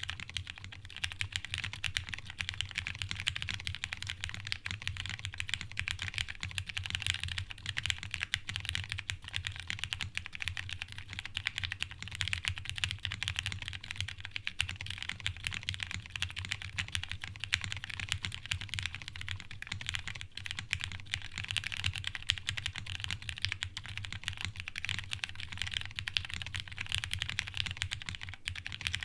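Continuous fast typing on a custom mechanical keyboard with lubed Cherry Hyperglide Brown tactile switches, a dense run of keystroke clacks with no pauses.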